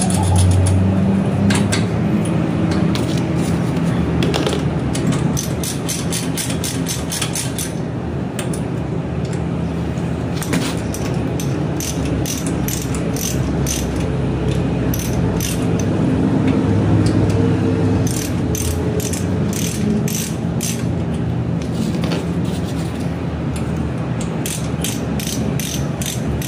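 Socket ratchet wrench clicking in repeated quick runs as a mechanic turns bolts on a scooter frame, over a steady low hum.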